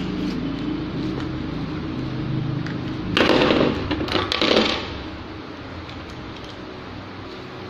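Plastic parcel wrapping rustled and crinkled by hand in two loud bursts, about three and four seconds in, over a steady low mechanical hum.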